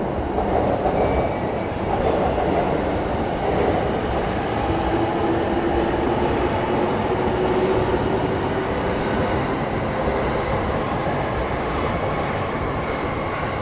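Electric commuter train running on the tracks alongside the platform: a continuous rail rumble, with a faint steady motor whine in the middle.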